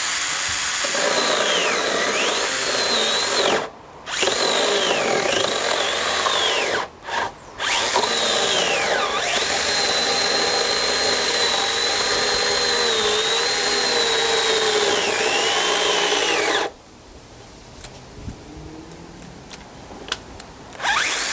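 Stihl GTA 26 battery pruning saw cutting through a wooden board. Its high motor-and-chain whine dips in pitch each time the chain bites and bogs in the wood. It runs in three long bursts with short pauses between them, stops about 17 seconds in, and starts again right at the end.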